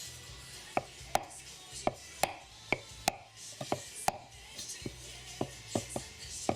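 Light, sharp taps, roughly one to two a second at an uneven pace, as the new oil seal is tapped home into the rear differential housing after going in only partly by hand.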